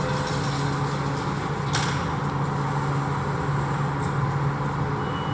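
Steady railway-station and street background noise with a constant low hum underneath, and one brief sharp knock about two seconds in.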